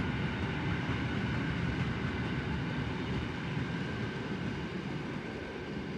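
Freight train of wagons carrying road semi-trailers rolling past: a steady rumble of wheels on rail that eases slightly toward the end as the last wagons go by.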